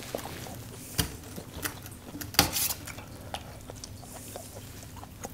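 Steel serving spoon stirring and scooping pieces of chicken from a stainless steel bowl of thick korma gravy, with a few metallic clinks of spoon against bowl; the loudest comes about two and a half seconds in.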